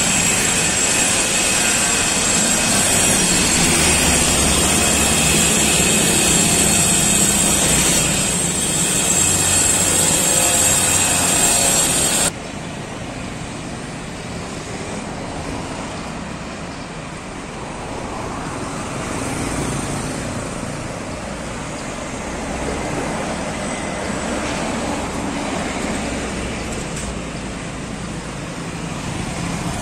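A coach bus approaching and driving past close by, its engine and tyres loud. About twelve seconds in, the sound cuts abruptly to quieter street traffic: cars and motorbikes passing, rising and falling gently.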